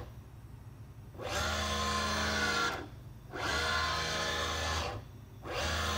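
JMC iHSV57 100-watt servo motor driving the Taig CNC mill's table through its 20 TPI lead screw at 240 inches per minute, a whine of several steady pitches. It comes in stretches of a little over a second, one traverse each, with short pauses between. The first starts about a second in and a third begins near the end.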